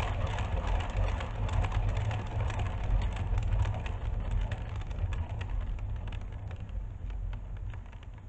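A turntable spinning a paint-covered board, running with a steady low rumble and many small ticks as paint flies off onto plastic sheeting. It slows and fades over the last few seconds as the spin winds down.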